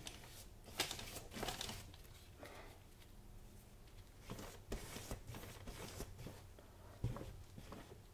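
Faint, irregular scratchy swishes of a paintbrush stroking and blending wet acrylic paint across a canvas.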